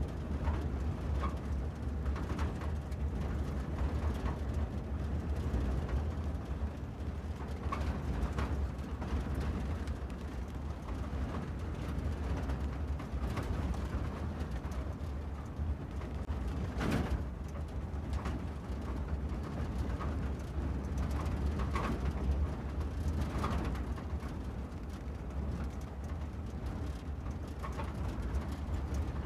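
Steady low rumble of a car being driven, with short higher-pitched chirps or squeaks every few seconds.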